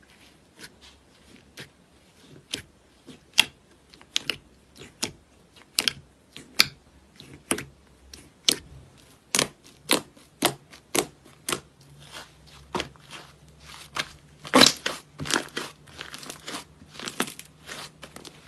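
Irregular series of sharp crunches, about one or two a second, growing busier in the second half, with a steady low hum that comes in about two-thirds of the way through.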